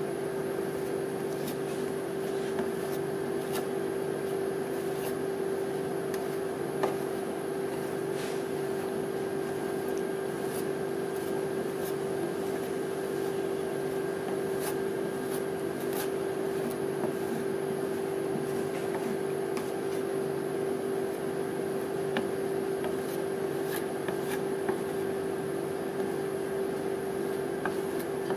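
Steady hum of a rolled-ice-cream machine's refrigeration unit running, with scattered light scrapes and taps of a metal spatula spreading frozen ice cream mix across the cold steel plate.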